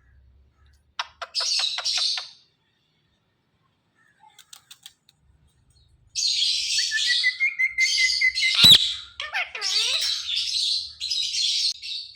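Indian ringneck parakeet calling: a quick run of short clicking notes about a second in, then after a pause a long stretch of harsh, raspy chatter with a held whistle and one sharp click partway through.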